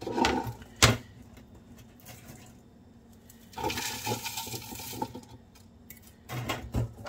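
Dried zucchini shreds rustling and pouring off a flexible plastic mesh dehydrator sheet into a measuring cup. There is a sharp knock about a second in, a rushing pour in the middle, and a few soft thuds near the end.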